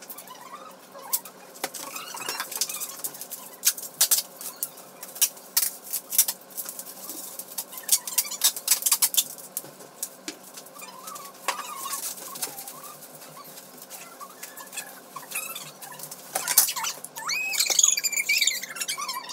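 Household belongings being handled and packed into a suitcase: a run of sharp clicks, knocks and rustling clatter. Near the end comes a burst of high-pitched, wavering squeaks.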